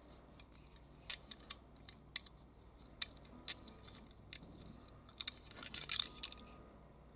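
Light clicks and taps of fingers handling a small die-cast toy car, a few single clicks spread out, then a quick flurry of clicks and rustling as the car is turned over.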